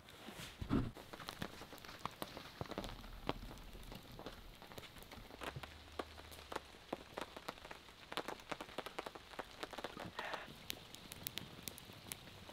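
Rain falling on a truck's tarp awning and the campsite around it, heard as a steady hiss full of scattered drop ticks. There is a louder dull thump about a second in.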